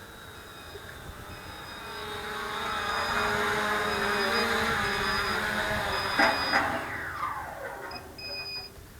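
Mini FPV racing quadcopter's brushless motors buzzing, growing louder for a few seconds, then a couple of sharp knocks about six seconds in and the motor pitch falling away over about a second and a half.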